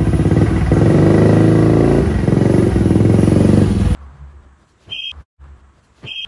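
Custom Yamaha Grand Majesty 250's single-cylinder engine running through an aftermarket DEVIL muffler with a deep exhaust note, the revs rising and falling, until it cuts off suddenly about four seconds in. Two short high beeps follow near the end.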